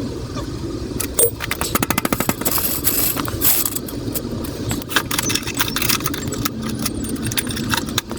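Metal parts clinking and rattling as they are handled during motorcycle chain work, with a quick run of clicks about two seconds in.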